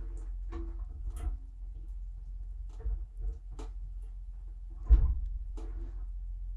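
Inside a running dishwasher: a low steady hum with scattered light ticks and clicks, and one sharper knock about five seconds in.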